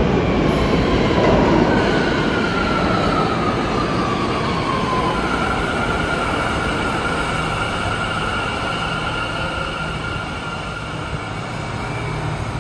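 New York City Subway J train running through Bowery station with a steady rumble. A high whine slides down in pitch a couple of seconds in, then holds at one pitch for several seconds.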